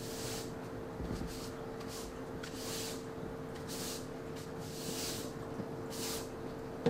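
Long-handled garden tool worked in regular strokes, a short hiss about once a second, over a steady low hum.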